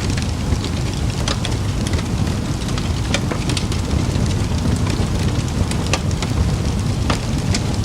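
Campfire crackling: frequent sharp pops and snaps over a steady low rumble.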